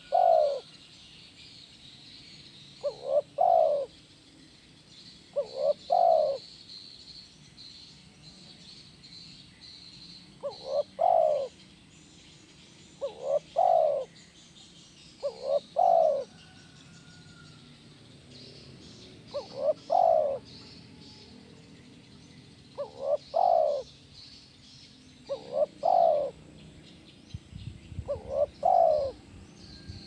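Spotted dove cooing over and over in its 'kuk 1' call style: a short phrase of quick notes about every three seconds, about ten phrases in all.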